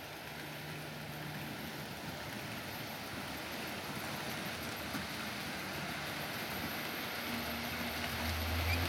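Model railway train running past: a steady rushing noise of wheels on the track and motor hum, growing slightly louder, with a low hum coming in near the end.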